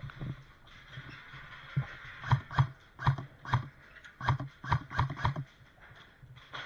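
A run of about nine short, sharp knocks over some three seconds, irregularly spaced and some in quick pairs, with a hollow clopping quality.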